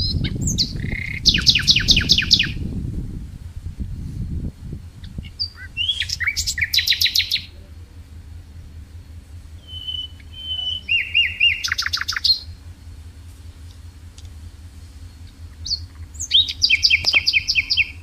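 A songbird repeating a short phrase of fast, trilled notes, four times about five seconds apart. A low rumbling noise runs under the first few seconds.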